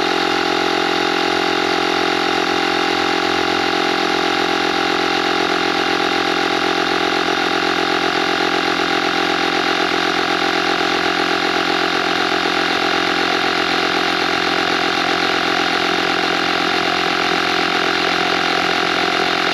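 Vtoman X1 jump starter's built-in cordless air compressor running steadily as it inflates a car tire toward its preset 32 PSI, with an even, constant pitch.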